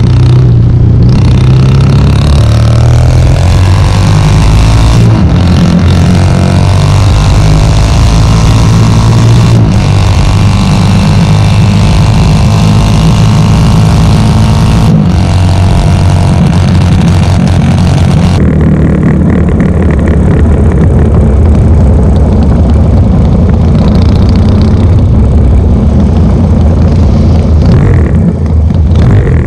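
A 1972 short-stroke Norton 750 Commando racer's parallel-twin engine running hard through an open megaphone exhaust, rising in pitch as it accelerates, at full volume. The sound breaks off and changes abruptly several times, and is duller after about two-thirds of the way through.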